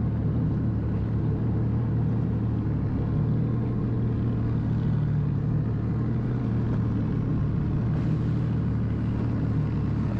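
Jet ski engine running steadily, a constant low hum with no change in pitch or level.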